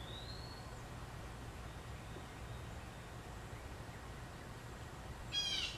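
Quiet outdoor background with a steady low hum; a bird's whistled note rising in pitch in the first second, then a single short, harsh bird call near the end.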